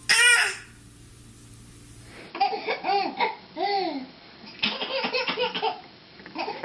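A baby laughing in several short bursts of giggles with pauses between, starting about two seconds in. It is preceded by a brief loud high sound right at the start.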